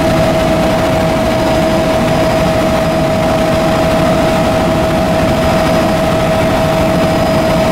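Helicopter engine and rotor noise heard from inside the cabin: a loud, steady drone with a constant whining tone through it.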